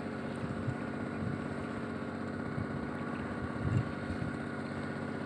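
An engine running steadily with an even drone, and a brief low thump about three and a half seconds in.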